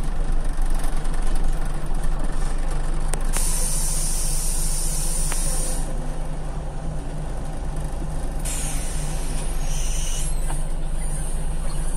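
Inside a Scania CL94UB city bus: the diesel engine runs with a steady low hum. Compressed air hisses twice, about three and a half seconds in for a couple of seconds, and again from about eight and a half seconds in for about three seconds, the second hiss with a thin whistling tone in it.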